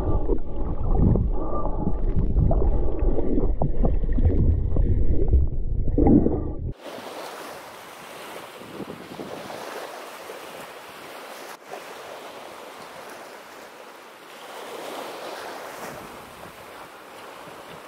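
Loud, muffled rumble of water and wind on the microphone, which cuts off abruptly about seven seconds in to a quieter, steady wash of ocean waves.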